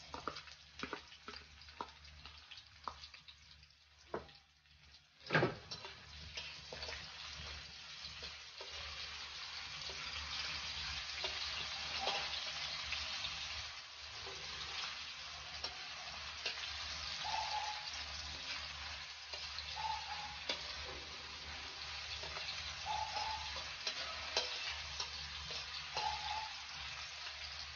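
Sliced red onions and garlic frying in hot oil in a stainless steel wok, a steady sizzle, with a metal spatula stirring and scraping the pan. The first few seconds are quieter, with small clicks and a sharp knock about five seconds in, before the sizzle builds and holds.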